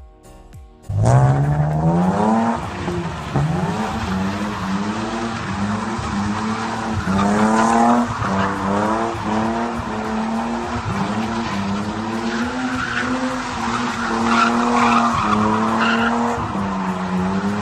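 A car engine revving hard over and over, its pitch climbing and falling back repeatedly, with tires squealing and skidding under the car.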